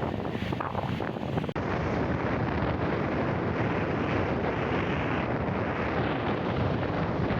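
Steady wind buffeting the microphone, a dense rushing noise with no clear tone, with a brief dropout about a second and a half in.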